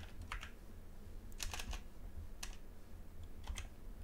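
Computer keyboard keys being typed: a handful of separate keystrokes, with a quick run of three about a second and a half in.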